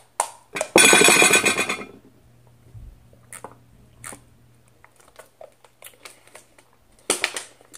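A loud crackling burst of a plastic drink bottle being handled and opened, about a second long, then quiet drinking with small faint clicks. Sharp clinks of tableware on a plate near the end.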